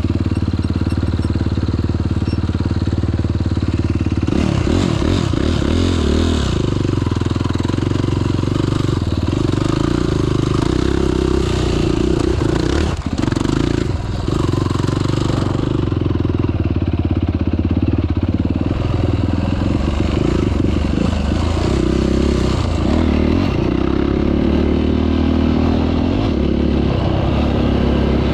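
Off-road vehicle engine running under load on a dirt trail, its pitch rising and falling with the throttle, with a short drop in level about halfway through as the throttle is eased off.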